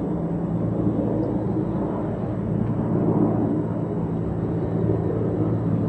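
Steady low mechanical hum with a few constant low tones, like an engine or motor running at an even speed.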